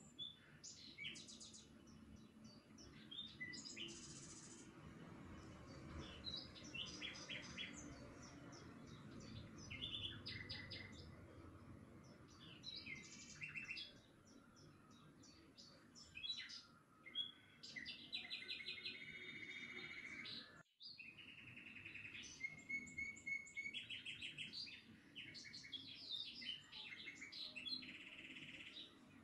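Small birds chirping and singing, many short repeated calls and trills overlapping, over a faint background noise. The sound cuts out for a moment about two-thirds of the way through.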